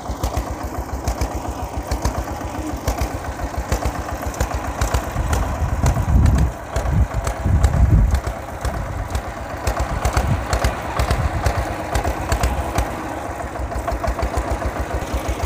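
Small mini tractor's engine running steadily with a rapid, even beat while it pulls a stone-weighted inter-row cultivator through crop rows. The sound swells louder for a couple of seconds around six to eight seconds in.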